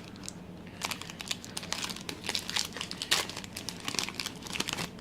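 Foil wrapper of a Pokémon trading card booster pack crinkling and tearing as it is handled and opened, in a run of irregular sharp crackles.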